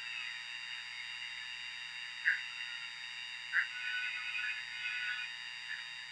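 Frogs croaking: two short separate calls, then a quick rattling run of calls about four seconds in.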